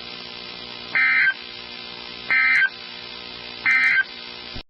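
Emergency Alert System end-of-message signal: three short, identical bursts of buzzy SAME digital-data tone, about 1.3 seconds apart, over a steady background hum from the radio receiver. The audio cuts off suddenly just before the end.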